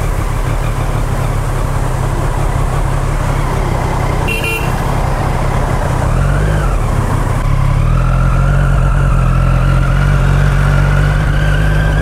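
Superbike engine running under way, a steady hum, with its note slowly rising over the last few seconds as it picks up speed.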